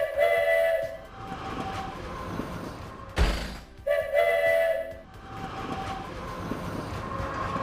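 Train sound effects: two short horn blasts about four seconds apart with a sudden thud between them, then the steady rumble of a train starting to pull away.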